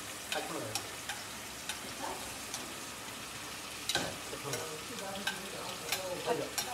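Chopped onions sizzling in hot oil in a stainless steel frying pan, stirred with a wooden spatula that knocks and scrapes against the pan every second or so.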